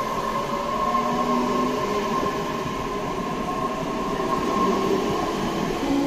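Tobu 60000 series electric train pulling along the platform. Its electric traction motors make a whine of several steady and slowly gliding tones over a continuous rumble of wheels on rails.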